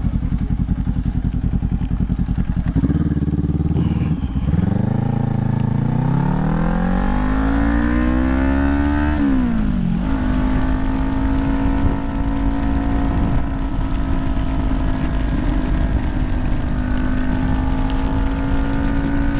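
2018 Kawasaki Ninja 400's parallel-twin engine running at low revs, then pulling away with a rising pitch from about four seconds in. The pitch drops sharply at a gear change just after nine seconds, then holds steady while cruising.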